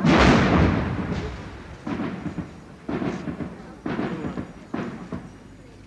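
A loud blast that dies away in a rumble, followed by four shorter, weaker bangs about a second apart, fading out: explosions or bangs in a street riot.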